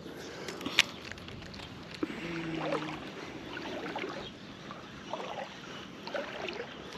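A baitcasting reel being wound in to retrieve a lure, with handling noise over water and outdoor noise. There is a click just under a second in, and a short low hum a little after two seconds.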